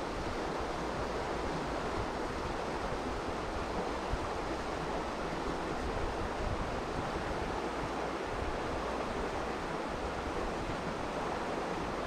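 Steady rush of a shallow river running over stones, with a low rumble of wind on the microphone.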